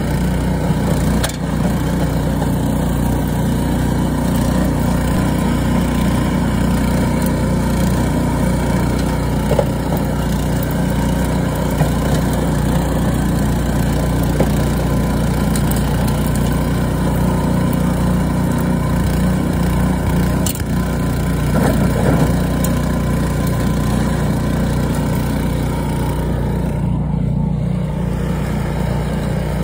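Two-stage petrol snowblower running steadily at working speed while it clears and throws snow, with a few light clicks.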